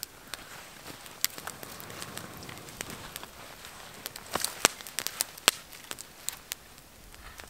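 Freshly lit campfire of twigs, some of them wet, crackling, with sharp irregular pops and a small flurry of them about halfway through.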